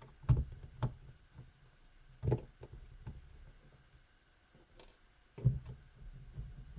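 Scattered clicks and light knocks of a screwdriver and hands working on a laptop's plastic bottom case while its perimeter screws are being taken out, over a faint low hum.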